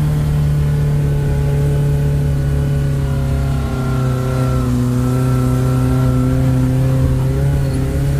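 A tour jeep's engine running steadily while driving, heard from on board, with its pitch dipping slightly and coming back up about halfway through.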